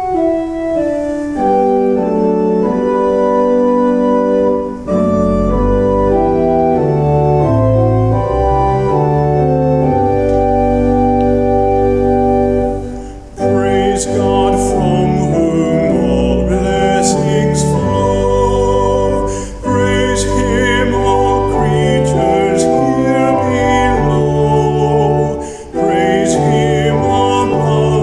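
Organ music: held chords over a slowly stepping bass line. About halfway through, a brighter layer with wavering notes joins in.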